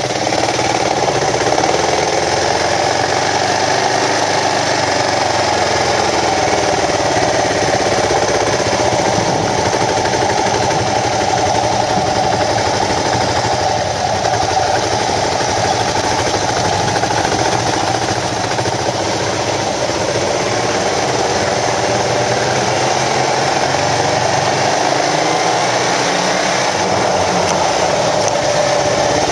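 Kawasaki KLR650's single-cylinder engine running as the motorcycle rides along, its pitch rising and falling with the throttle over a steady rushing noise.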